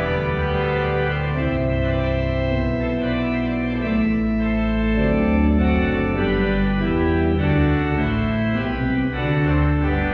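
Church organ playing slow, sustained chords in a hymn-like progression.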